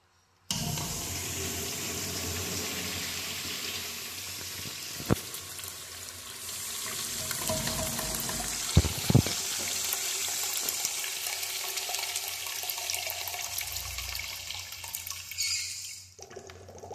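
Zurn wall urinal flushing: a rush of water starts suddenly about half a second in and runs steadily for about fifteen seconds, with a few sharp knocks partway through, then tapers off and stops.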